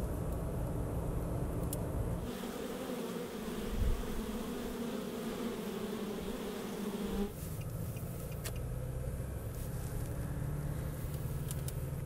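Low road rumble inside a moving car. About two seconds in, it gives way to the steady hum of many honey bees buzzing at a hive entrance. The hum lasts about five seconds before a low rumble returns.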